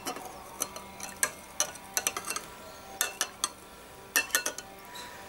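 Metal spoon clinking against a glass bowl while stirring salt into water to dissolve it for brine: a string of irregular light clinks.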